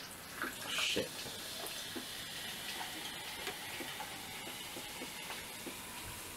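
Carbonated sparkling water poured from a can into a glass, with a louder splash about a second in, then steady fizzing with small crackling pops of bubbles.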